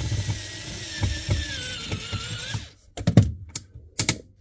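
Cordless drill-driver running on a seat screw for about three seconds, its whine sinking in pitch under load before it stops; then several sharp clicks and knocks of small metal parts.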